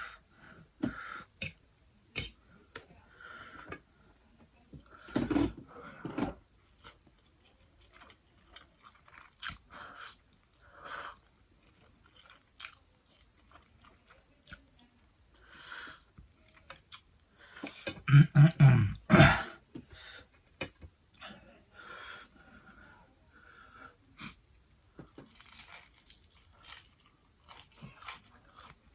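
A person chewing and crunching fried chicken and noodles, in many short irregular bites with two louder bouts, about a fifth of the way in and again about two thirds through.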